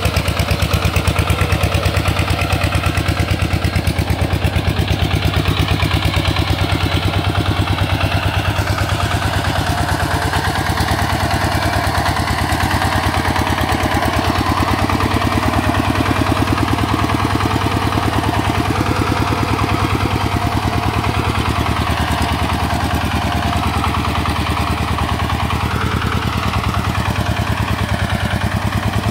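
Single-cylinder diesel engine of an RT 140 Plus hand tractor running steadily, with an even, rapid firing beat.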